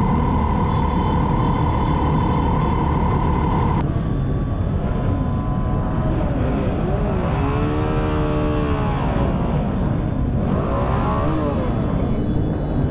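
Motorcycle engines running together in a slow procession, with a steady high whine that cuts off about four seconds in. One engine revs up and back down about two thirds of the way through, and another shortly after.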